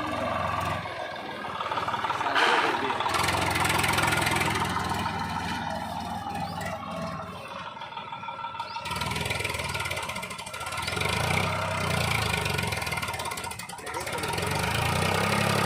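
Diesel engines of heavy machinery running, the sound changing abruptly a few times.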